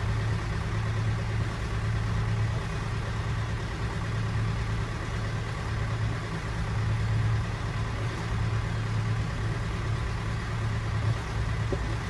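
Sailboat's inboard fuel engine running steadily as a low, even hum, driving the boat under way while the batteries of its hybrid electric drive charge.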